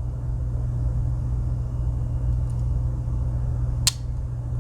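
A steady low rumble or hum runs underneath, and near the end comes one sharp click from the Victorinox Farmer X Swiss Army knife, typical of a tool snapping into place on its backspring.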